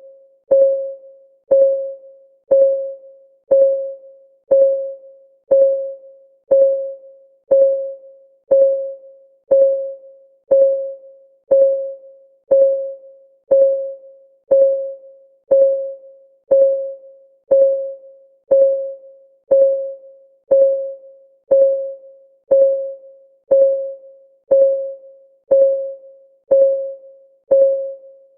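Countdown timer's ticking sound effect, one tick a second, steady and even. Each tick is a short, clear blip of one pitch that dies away quickly.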